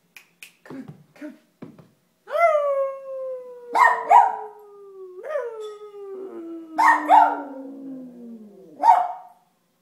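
A man howls like a wolf, one long howl sliding slowly downward in pitch. A small dog howls along with him in several short yelping cries.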